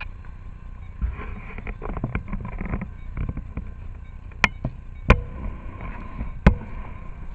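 Handheld camera carried on foot: a low rumble with scuffing, and three sharp handling knocks about four and a half, five and six and a half seconds in.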